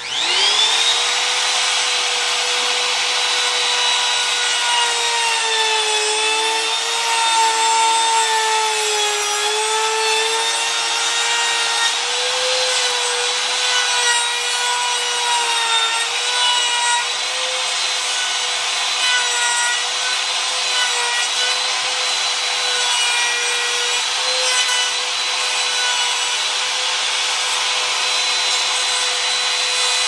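Compact trim router switched on and spinning up to speed, then running with a steady high whine as its bit cuts a hinge mortise in wood. Its pitch sags and wavers for several seconds under the load of the cut, then steadies.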